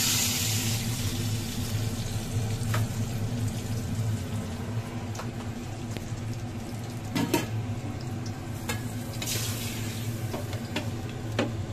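A spoonful of oil with turmeric sizzling over a gas flame, hissing at the start, then hot turmeric oil hissing again as it goes into a bowl of buttermilk-soaked vadas about nine seconds in. There are a few light clinks of a steel spoon, and a steady low hum underneath.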